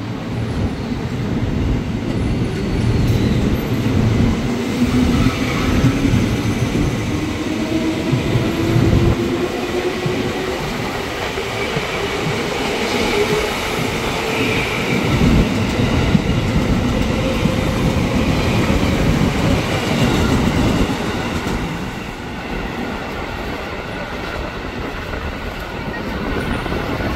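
KRL Commuter Line electric train running past close by and pulling away, wheels clattering over the rail joints, with a motor whine that rises in pitch over the first ten seconds or so. Near the end another commuter train is heard approaching.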